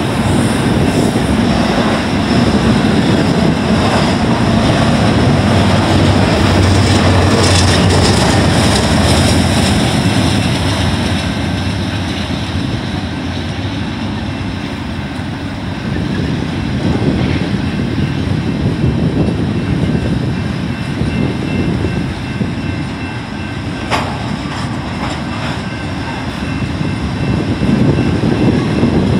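BNSF double-stack container train's well cars rolling past, their steel wheels rumbling and clattering on the rails. It is loudest in the first ten seconds or so, then eases slightly, with one sharp clank late on.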